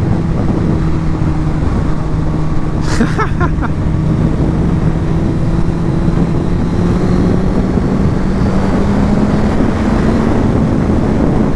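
Suzuki GSX-R 1000's inline-four engine running steadily at part throttle while riding, its pitch rising slowly through the second half as the revs climb, over a steady rush of wind.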